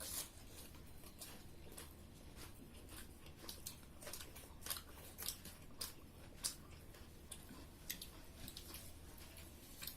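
People eating pork curry with rice: faint chewing and mouth sounds with irregular small clicks and smacks, a few each second, over a low steady hum.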